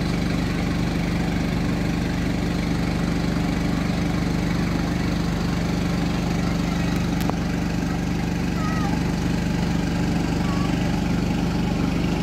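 An engine idling steadily: a constant low hum and rumble. A few faint short chirps come through near the end.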